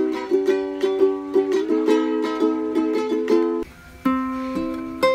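Ukulele strummed in quick, evenly repeated chords. About three and a half seconds in, the sound cuts to a few slower chords that ring out longer.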